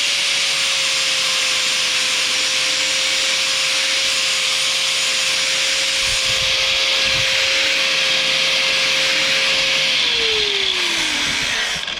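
Angle grinder with a 4.5-inch flap wheel grinding the cutting edge of a steel lawn mower blade: a steady motor whine under a loud grinding hiss. About ten seconds in the grinder is switched off and its whine falls in pitch as it spins down.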